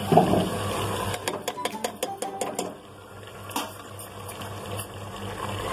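Steel kitchen utensils clinking against each other in a quick run of light taps about a second in, with one more near the end, as spice powders and ginger-garlic paste are tipped and tapped out of a steel bowl into an aluminium pressure cooker. A steady low hum sits underneath.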